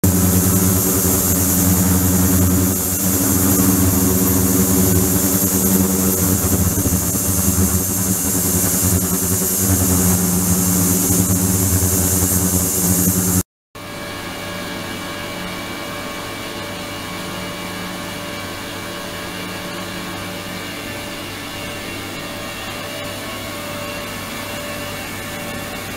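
Ultrasonic tank (72 kHz, 300 W) running with water in it: a steady hum with a high hiss. The sound cuts out briefly about halfway, then carries on quieter, with several steady tones.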